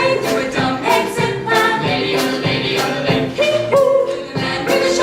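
A live stage musical number: a group of voices singing together in a choir-like ensemble over band accompaniment with a steady beat.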